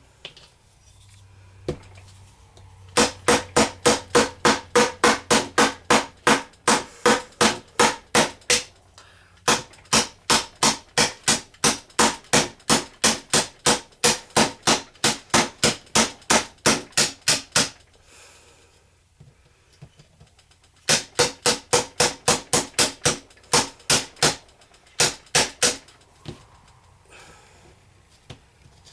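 Hammer rapidly striking a chisel into a hard, dried-out plaster dig block, about three blows a second in long runs with short pauses. Each blow is a sharp, loud bang with a slight ring.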